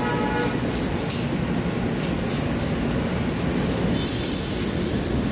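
Subway train standing at the platform, its running equipment giving a steady rumbling noise; about four seconds in a sharp hiss of air starts and lasts about a second, typical of a train's air brakes or pneumatics venting.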